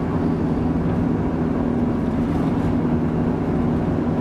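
Steady engine and road noise from inside a moving vehicle's cabin, with a constant low drone.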